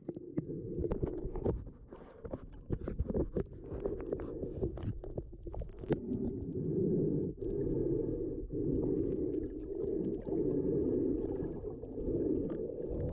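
Muffled underwater noise heard through a GoPro's waterproof housing while snorkelling: a low rumbling wash of water that swells and dips, with many scattered sharp clicks and crackles, thickest in the first half.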